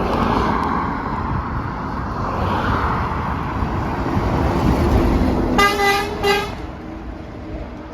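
Passing road traffic, then about six seconds in a vehicle horn gives two short toots, the second shorter than the first.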